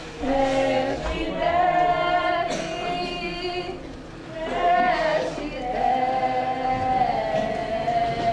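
A choir of voices singing long held notes together, in two phrases with a short dip about four seconds in.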